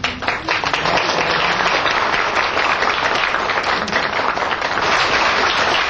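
A crowd applauding with dense, steady clapping.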